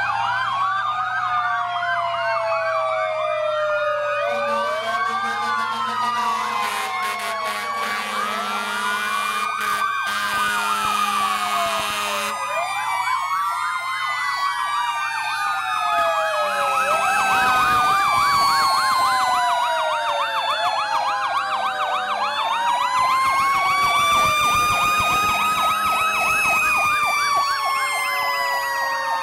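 Several fire trucks' sirens sounding at once, wailing and yelping with their pitches rising and falling across each other in a dense tangle.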